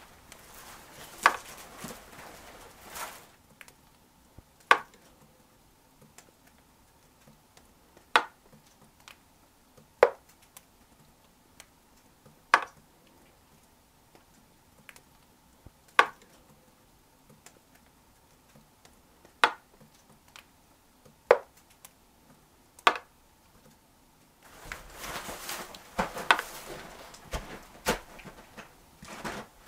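Quiet interior broken by single sharp ticks every two to four seconds. Near the start and again near the end come rustling and crunching footsteps in snow, with small knocks.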